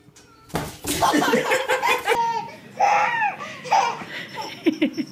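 Loud laughter starting about half a second in, turning near the end into a quick run of short, rhythmic laughs.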